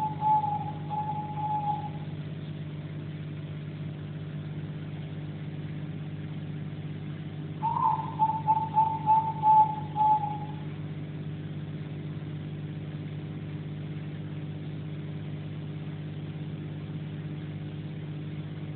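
A steady low hum, of the kind aquarium equipment gives, runs throughout. A quick series of short, high, hooting notes, slightly falling in pitch, fades out about two seconds in. Another such series comes about eight seconds in and lasts about three seconds.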